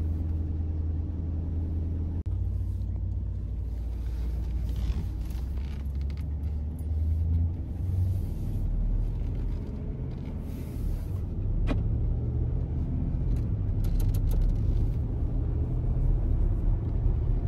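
Twin-turbocharged Ford F-150 5.0 Coyote V8 heard from inside the cab, a steady low engine and road rumble under light, gentle driving through the full stock exhaust, growing a little louder in the last few seconds. A few sharp clicks come about twelve and fourteen seconds in.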